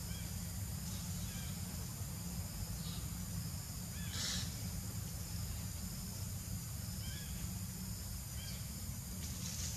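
Steady low outdoor background noise with a few short, high animal calls, the loudest about four seconds in and fainter ones near seven and nine and a half seconds.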